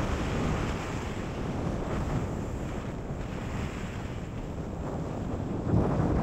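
Wind rushing over the camera microphone and skis sliding over groomed snow during a fast ski descent, a steady rushing hiss. A brief louder thump comes near the end.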